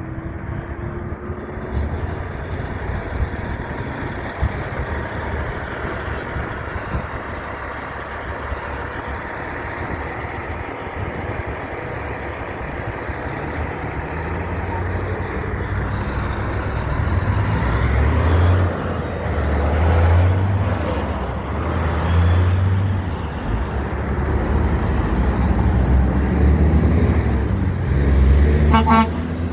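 Heavy trucks passing on a road: steady traffic noise with deep diesel engine rumble that swells several times and grows louder in the second half.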